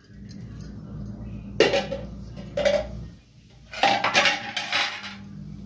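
Metal lid and spatula clanking and scraping on a steel kadhai as cooking saag is uncovered and stirred, with loud clatters about one and a half, two and a half and four seconds in. The saag has burnt onto the bottom of the pan.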